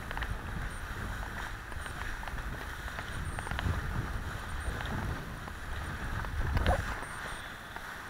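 Kiteboard skimming over choppy sea, with wind buffeting the head-mounted camera's microphone and water hissing off the board; a louder splash near the end.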